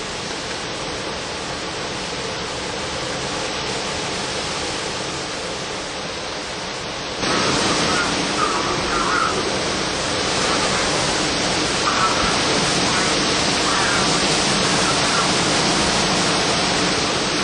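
Hurricane wind and driving rain rushing steadily over the microphone. The rush jumps abruptly louder about seven seconds in and stays up.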